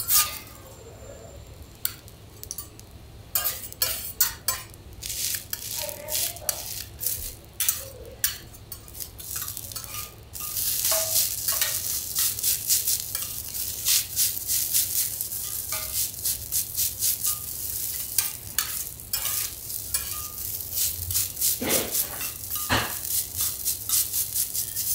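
Garlic rice frying on a teppanyaki iron griddle, with metal spatulas clicking and scraping against the griddle. For the first ten seconds there are scattered clicks; then the sizzle turns loud and steady, with quick, regular spatula strokes.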